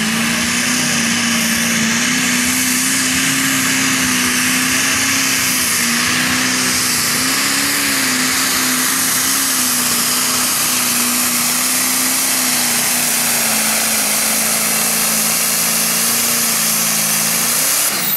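Old McCormick tractor's engine running at full throttle under load during a pull, a loud steady drone that holds nearly level in pitch with slight wavers. It drops off right at the end as the throttle comes back.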